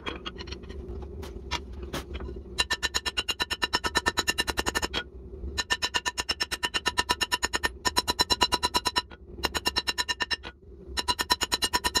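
Hand hammer striking a hot steel jackhammer bit on an anvil while the point is drawn out: quick, even runs of ringing blows with short pauses between them. The runs start about two and a half seconds in, after a few lighter taps. A steady low hum runs underneath.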